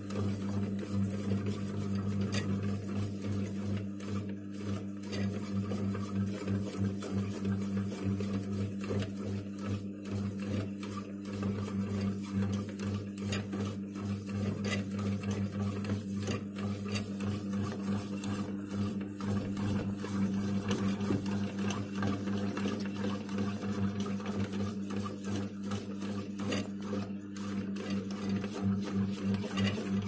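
LG HB-152CE bread maker kneading dough: its motor runs with a steady low hum, under a fast, uneven rattle from the paddle and the dough ball turning in the pan.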